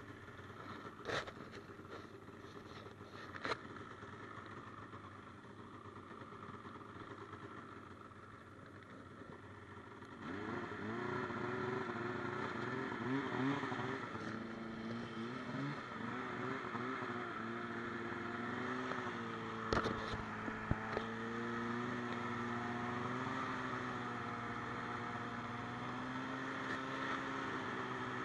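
Polaris snowmobile engine idling low with a few sharp clicks. About ten seconds in it picks up and the sled gets under way, the engine's pitch rising and falling before it settles into steady running, with a couple of knocks around twenty seconds in.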